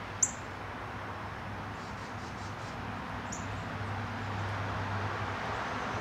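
A songbird gives two short, high chip notes about three seconds apart, the first louder, over steady outdoor background noise.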